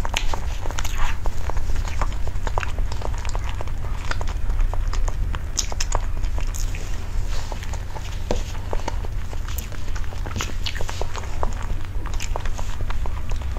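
Close-miked chewing of soft mousse-topped layer cake: many short wet mouth clicks and lip smacks, over a steady low hum.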